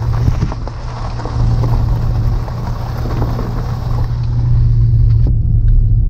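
Car engine and road noise while driving uphill: a steady low drone under a continuous rushing hiss.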